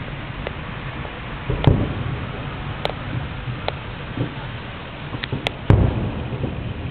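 Distant fireworks shells bursting: two heavy booms, about two seconds in and again near the end, with several sharper cracks between them over a steady low rumble.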